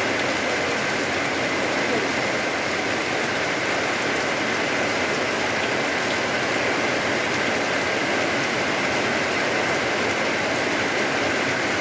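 Steady rain falling, a continuous even hiss of raindrops on surfaces.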